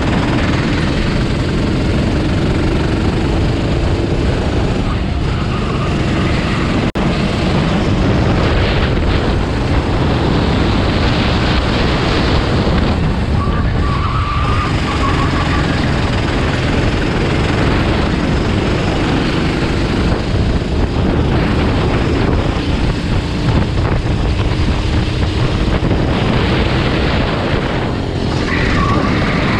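Racing vehicles' engines running and passing continuously, a dense loud engine noise with faint engine tones drifting up and down in pitch as vehicles come and go.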